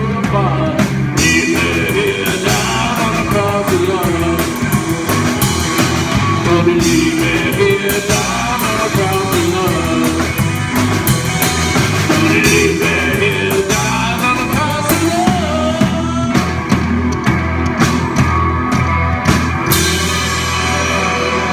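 Live rock and roll band playing: drum kit, electric guitar and upright double bass, with a sung lead vocal. The cymbals and drums drop out near the end, leaving guitar and bass.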